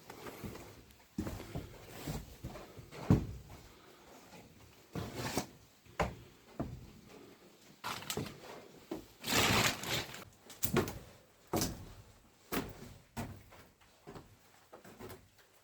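Someone moving about and handling things: a series of irregular knocks, thuds and clicks, with a longer scraping rustle about nine seconds in.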